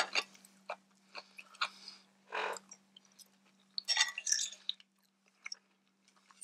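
Chewing food close to the microphone, with a knife and fork clicking and clinking against a glass bowl now and then.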